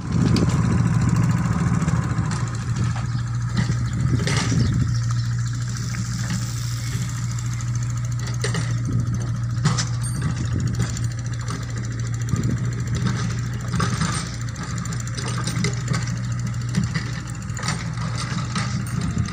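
Mini excavator's diesel engine running steadily under work, with occasional knocks and clanks from the digging.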